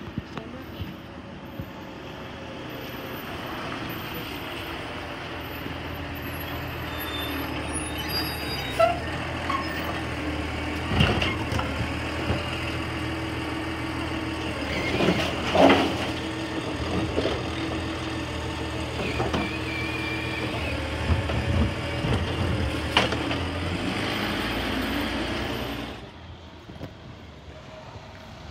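Automated side-loader garbage truck's diesel engine running while its hydraulic arm grabs, lifts and tips a wheeled cart into the hopper, with a few metal clanks and bangs as the cart is shaken out and set back down, the loudest about halfway through. The sound drops away sharply near the end.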